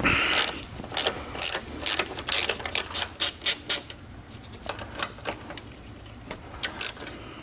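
Hand ratchet clicking in quick strokes as the three 13 mm top nuts of a front strut mount are backed off. It makes a run of sharp clicks, about three or four a second, that thins out after about four seconds.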